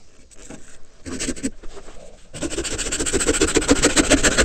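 A hand saw cutting through PVC pipe. A few light scratches come first, then a little past halfway the sawing starts in earnest with quick, even back-and-forth strokes, much louder.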